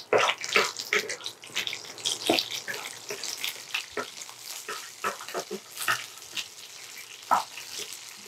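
Cashews and almonds sizzling and crackling as they fry in hot ghee in a nonstick pan, with a wooden spatula stirring them and giving frequent short clicks and scrapes.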